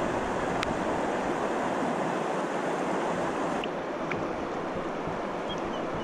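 Steady rush of fast-flowing river water, the high hiss dimming slightly about three and a half seconds in.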